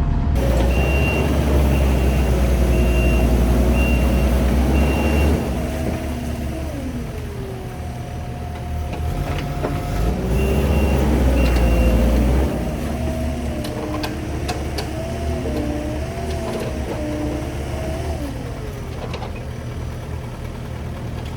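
Skid steer's diesel engine working hard under load with its reverse alarm beeping in two spells, as the machine tries to back out of quicksand; between the spells a whine rises and falls with the hydraulics.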